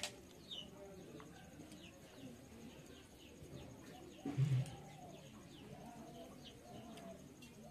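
Birds chirping with many quick short calls, along with cooing calls. A sharp click at the start, and a short, louder low sound about halfway through.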